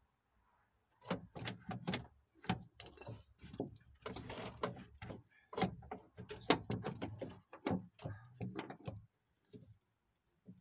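Clicks, clanks and rattles from a 1999 Toyota Camry's door latch and lock actuator assembly being worked loose inside the door, a locking rod still attached. It starts about a second in, with a longer scrape around the middle.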